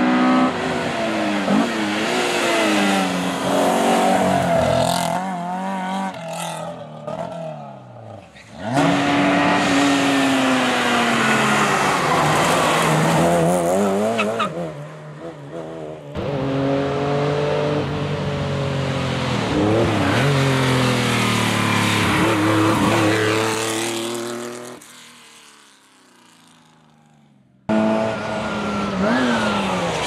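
Classic rally cars, among them a classic Mini, driven hard past the microphone one after another, engines revving up and dropping back through gear changes, with some tyre squeal. Each pass fades as the car pulls away, and the sound is quiet for a couple of seconds near the end before the next car.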